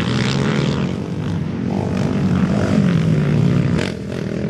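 Racing quad (ATV) engines revving on the track, their pitch rising and falling as the throttle is worked, with a slight drop in loudness near the end.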